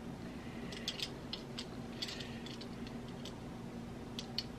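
Small plastic Lego pieces clicking and tapping as they are handled and pressed together, a scattered run of light, irregular clicks.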